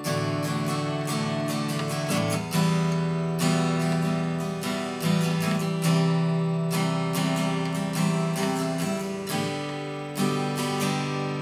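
Acoustic guitar in standard tuning strumming a chord progression of D, E minor, C and G, with the chords changing every second or two.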